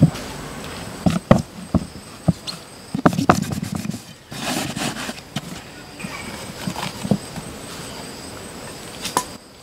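Sharp wooden knocks and blade strikes as a machete chops into a round wooden lid. There are single knocks in the first couple of seconds, a quick flurry of strikes about three seconds in, then a rustling scrape, all over a faint steady high tone.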